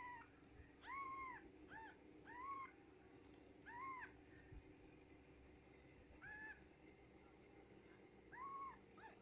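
Newborn Japanese Bobtail kittens mewing: about eight short, faint, high-pitched cries, each rising and falling in pitch, coming at irregular intervals.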